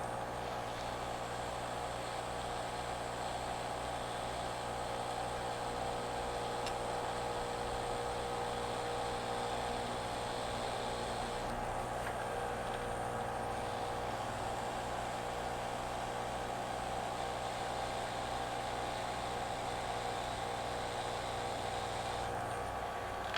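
Steady fan hum with an airy hiss from a hot air rework station blowing on a phone motherboard to loosen a soldered coil. The hiss dips for a couple of seconds about halfway through and again near the end.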